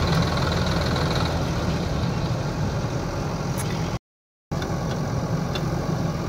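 Diesel engines of a JCB backhoe loader and a Sonalika DI-50 tractor running steadily while the backhoe loads soil. The sound cuts out completely for about half a second about four seconds in.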